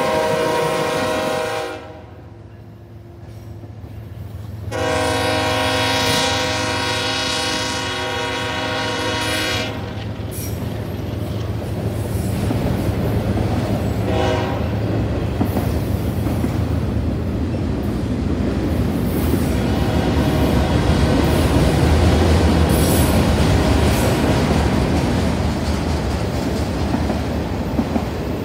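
Freight locomotive air horn sounding as the train passes: a blast that stops a couple of seconds in, a second long blast of about five seconds, and a brief toot near the middle. After that comes the steady rumble and clickety-clack of loaded autorack cars rolling past on the rails, growing a little louder toward the end.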